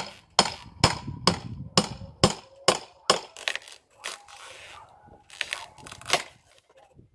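Hammer blows on a steel crowbar with a short metallic ring, driving the bar in to pry out an old window frame. About two blows a second for the first few seconds, then a few scattered blows, two close pairs near the end.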